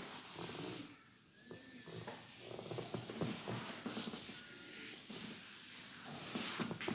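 Hands rubbing and kneading the skin and hair of the neck and behind the ears during a head massage: an uneven scratchy rustling that comes and goes, most crackly around the middle.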